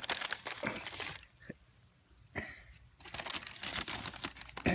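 Brown paper bag crinkling and rustling as a hand rummages inside it, in two spells: for about the first second and again from about three seconds in.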